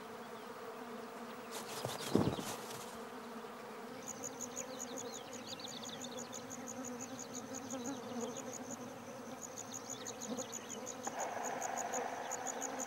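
Swarm of black flies buzzing steadily around a head net, with a brief thump about two seconds in. From about four seconds in, a rapid high-pitched pulsing chirp, about five a second, runs alongside the buzz.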